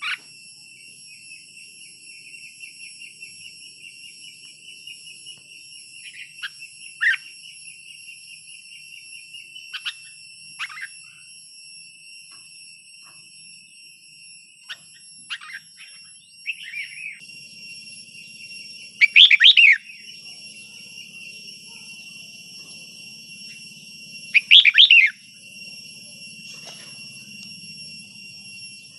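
Red-whiskered bulbul singing: a few short chirps, then two loud warbling phrases about five seconds apart. A steady high-pitched whine runs underneath.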